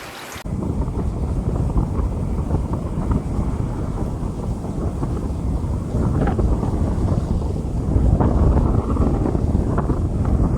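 Rain with a loud, low rumble of wind buffeting the microphone, cutting in abruptly about half a second in and running on steadily.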